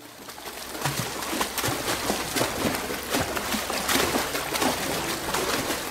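Swimming-pool ambience sound effect: water splashing and sloshing in a pool, fading in over the first second.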